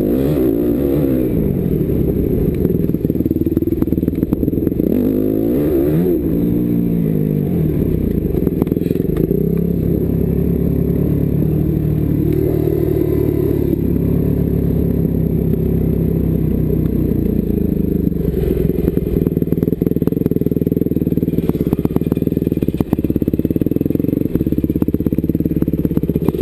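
250 cc motocross bike engine heard from on board, revving up and down through the gears while riding a rough dirt track, with short rattles and knocks from the bike over the bumps.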